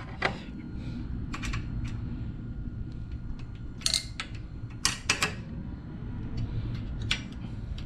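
Scattered sharp metallic clicks and clinks of small valve-train parts and hand tools being handled on a Predator 212 engine's cylinder head, a few seconds apart, over a steady low hum.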